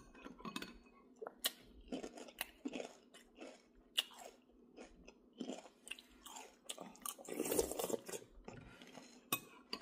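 A person chewing food close to the microphone: scattered soft crunches, mouth clicks and smacks, with a longer, louder stretch about three-quarters of the way through.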